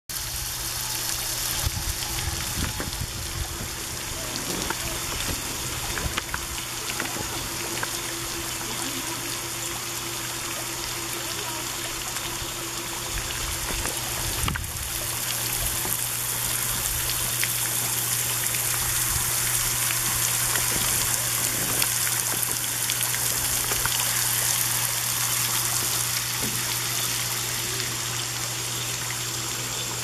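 Running water trickling and splashing steadily into a pond, with a low steady hum underneath.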